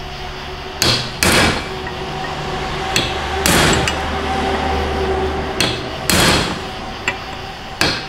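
Hammer striking a staking punch to stake a part in place on a 4L60 transmission: a handful of separate metallic blows at uneven gaps, a few heavy strikes with short ringing and some lighter taps between them.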